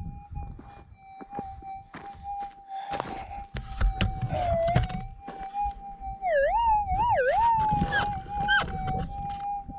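Minelab gold detector's steady threshold tone. About six seconds in it swoops down and up in pitch several times as the coil passes over a target at the dig hole. A few knocks and scuffs of boots and soil come in the middle.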